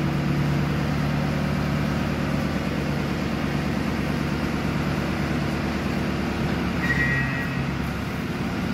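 Tractor engine driving a Vinmax VM1300 forage chopper, running with a steady drone. About seven seconds in, as chopped grass starts blowing from the spout, a brief high whine sounds and the drone drops lower in pitch.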